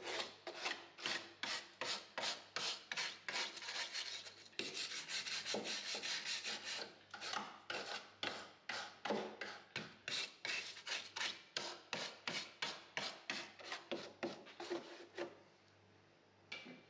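Hand wire brush scrubbing the rusty bare-steel inner wing panel of a Volkswagen T4 Transporter: rapid back-and-forth scraping strokes, about three a second, that stop shortly before the end.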